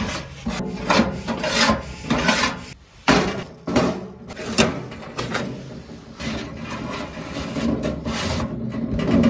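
Ash being scraped out of the firebox of a small steel wood stove, a tool rasping over the ash and steel floor in a run of uneven scraping strokes.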